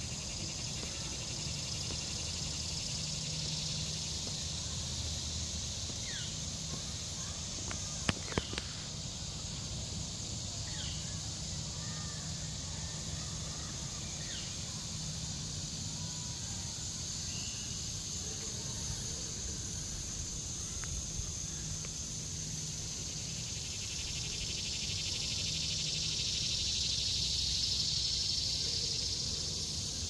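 Steady high-pitched chorus of insects in summer vegetation, swelling louder for a few seconds near the end, with a few faint bird chirps. A couple of sharp clicks come about eight seconds in.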